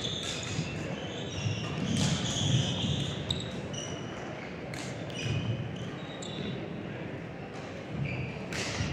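Badminton play on a hall court: a few sharp racket strikes on the shuttlecock and many short high squeaks of shoes on the court floor, over a low murmur of voices.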